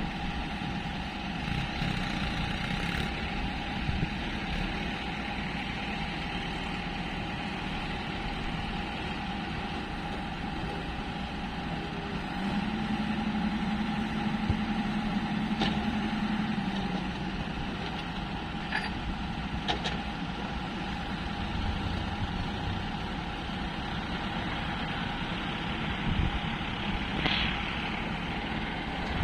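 Hyundai 210 LC7 long-boom excavator's diesel engine running steadily, its note rising briefly about halfway through, with a few faint clicks.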